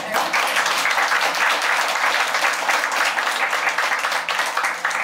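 Applause from a roomful of people: many hands clapping at once in a steady, dense patter.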